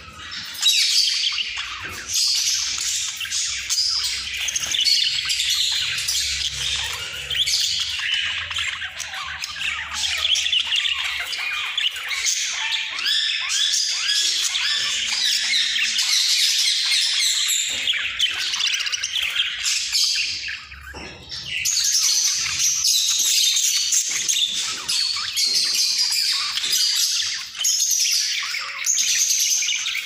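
Several budgerigars warbling and chattering continuously, a dense stream of quick high calls, with a short lull about two-thirds of the way in.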